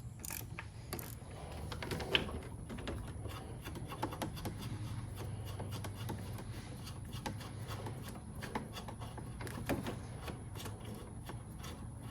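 Light irregular clicks, ticks and rubbing of hands and small tools working the wire connections on a car battery terminal, over a steady low hum.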